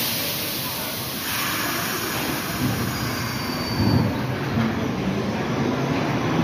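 Subway train running on the rails: a steady rumble and rail noise that grows a little louder about a second in.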